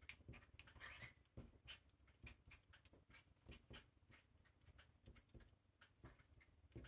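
Faint, irregular scratching and tapping of a marker tip on paper as small doodles are drawn, over near silence.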